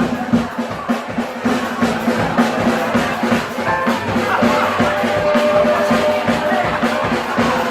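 Live frevo band playing an instrumental passage, with electric guitars, bass and drum kit over a fast, even beat.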